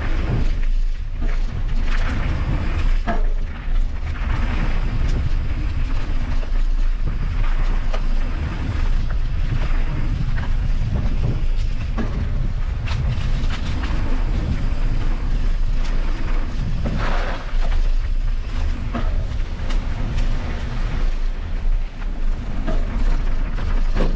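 Mountain bike ridden on a dirt trail: a steady rush of wind buffeting the camera microphone, with tyre noise and scattered sharp knocks and rattles from the bike over rough ground.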